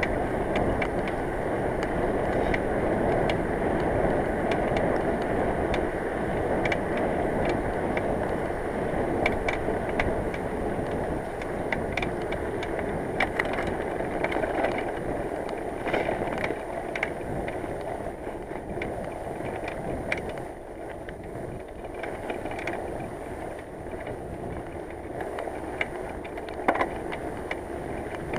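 Steady rush of wind and tyre noise from a bicycle on the road, picked up by a camera riding with it, with scattered sharp clicks and knocks throughout; the rush eases a little in the second half.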